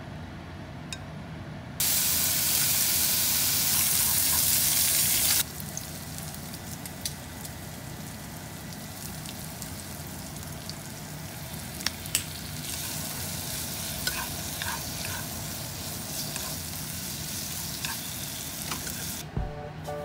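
Pork slices and onion frying in a non-stick frying pan, with a steady sizzle and occasional clicks of wooden chopsticks against the pan. About two seconds in the sizzling becomes much louder for three or four seconds, then settles back.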